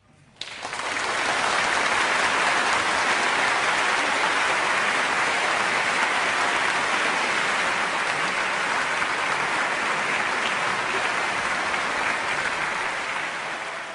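A large audience applauding in a concert hall, breaking out suddenly about half a second in and keeping up steadily.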